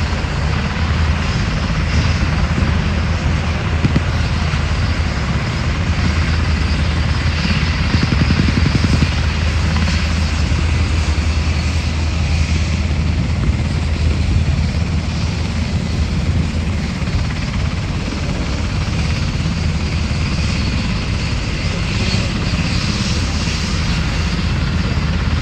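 UH-60 Black Hawk helicopters running close by: a steady, loud, low rotor beat over a constant rushing rotor and engine noise.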